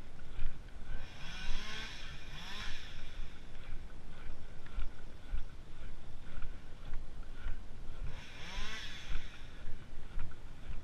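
An engine revving up twice, its pitch rising each time, about six seconds apart, over a steady low running rumble with scattered clicks and knocks.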